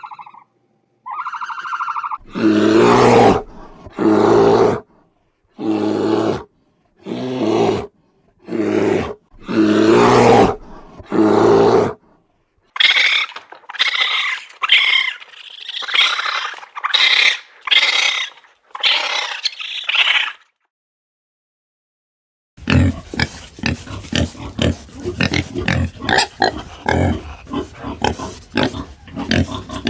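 Animal calls in three clips, one after another: about eight deep calls, each about a second long; then about ten higher-pitched calls; and, after a short silence, a fast run of many short calls.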